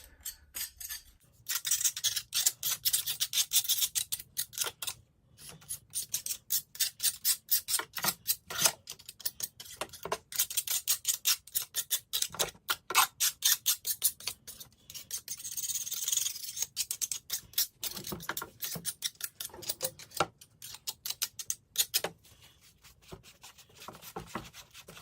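Rapid back-and-forth hand strokes rubbing paint that has been softened by a Simple Green soak off a metal vise part, several strokes a second, with short pauses. The strokes thin out near the end.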